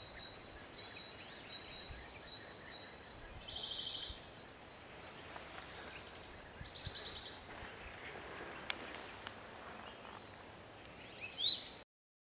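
Faint outdoor ambience with small birds calling: two short, rapid high trills a few seconds apart, faint repeated high peeps throughout, and a couple of quick rising chirps near the end, after which the sound cuts off suddenly.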